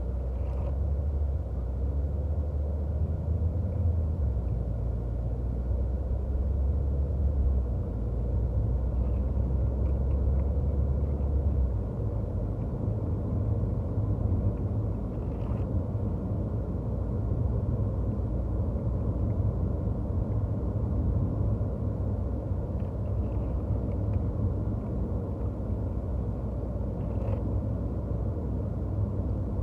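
Low steady rumble inside a Chevrolet car's cabin with the engine running. The deepest part of the rumble drops away about twelve seconds in, and a few faint clicks come later.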